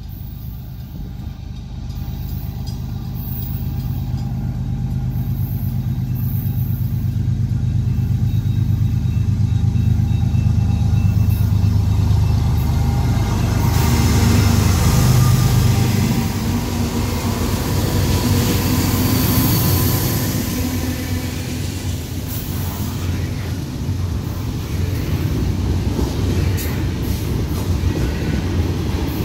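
Diesel-electric freight locomotives approaching and passing at track speed, their engine rumble building to its loudest around the middle as they go by. After that comes the steady rumble and wheel noise of the double-stack container cars rolling past.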